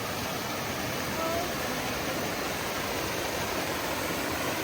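Creek water rushing steadily over rocks and into rock pools.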